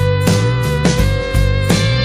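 Background music: an instrumental track with guitar-like plucked notes and a steady beat.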